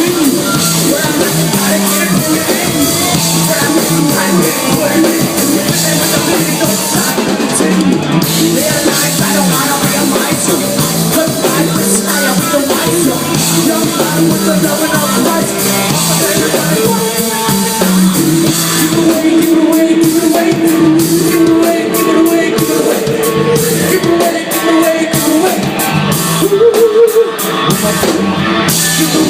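Live rock band playing: drum kit, electric guitar and singing, loud and steady, with the drums hitting harder in the second half.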